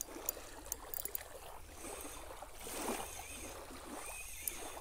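Spinning reel cranked to bring in a hooked fish, with a few light clicks in the first second, over water lapping at the shore.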